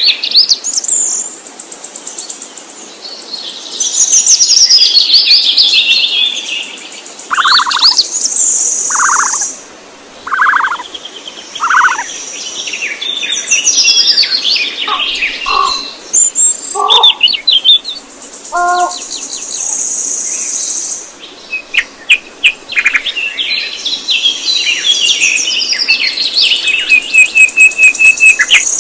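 Songbirds singing and calling, several voices overlapping: long high trills and quick chirps, with a run of four lower whistled notes about a second apart about a third of the way in.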